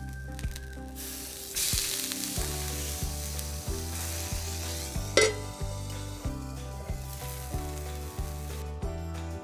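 Food sizzling as it fries in a pan, starting about a second in and loudest soon after, with one sharp clink around five seconds in. Background music with a repeating bass line plays throughout.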